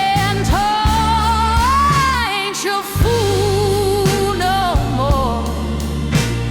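Slow soul-blues ballad music: a long, wavering sung melody line with slides between notes, held over a steady bass and regular drum beats.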